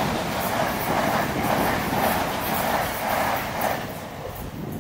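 Great Northern electric multiple-unit train passing close at speed: a steady rush of wheels on rail with a pulsing clatter, fading as it pulls away near the end.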